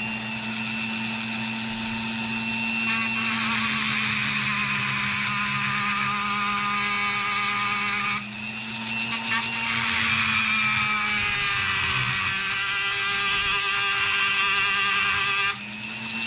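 A small high-speed electric grinder running and grinding the steel drive pin off an end mill's shank. The harsh grinding hiss comes in two long passes, broken briefly about eight seconds in and again near the end, and the motor's pitch sags under load in the second pass.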